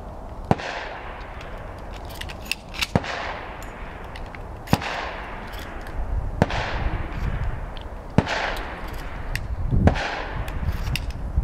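Shotgun firing at a steady pace: about six loud shots roughly a second and a half apart, each with an echo trailing off, plus a couple of fainter cracks.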